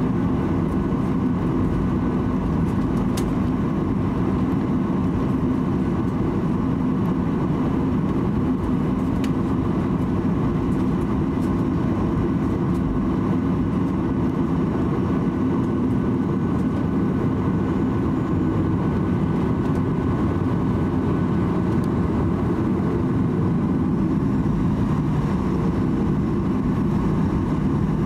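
Cabin noise of a Boeing 737-800 taxiing, its CFM56-7B turbofan engines running steadily at low power under a constant hum.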